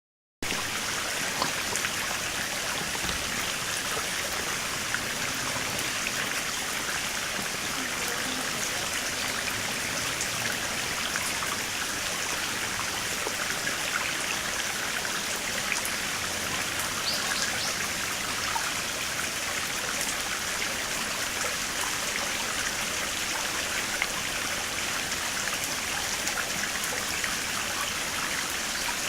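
Shallow stream of water flowing and splashing over rocks: a steady, even rush with small scattered splashes.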